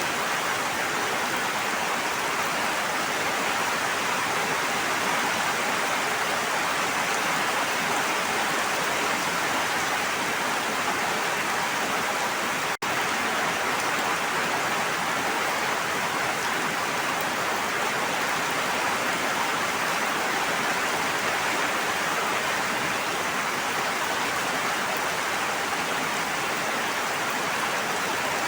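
Steady rushing water, an even hiss like heavy rain or falling water, with a split-second dropout a little before halfway through.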